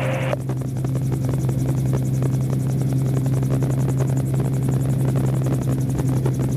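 AutoGyro MTO Sport gyroplane in flight, heard from the open cockpit: its engine and pusher propeller run with a steady, even low drone. A higher hiss cuts off just after the start.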